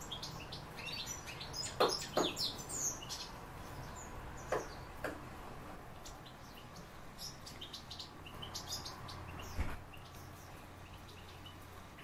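Cage birds chirping: many short, high chirps scattered all through, with a few sharp taps in the first half and a dull bump near the end.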